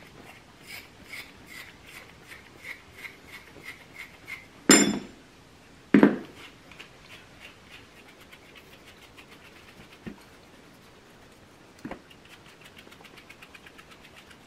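Hand-stripping a West Highland White Terrier's leg coat: fingers plucking and pulling out the dead hair in soft, scratchy strokes, about two to three a second. Two loud sudden bumps come about five and six seconds in.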